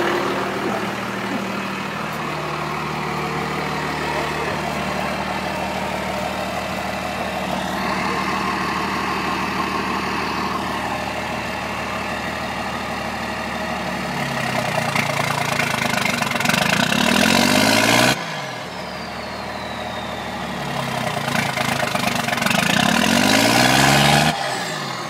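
Dodge 12-valve Cummins inline-six diesel running with the turbo intake hose off: it idles steadily, then is revved twice. Each rev climbs for a few seconds and drops off abruptly, followed by a falling whistle.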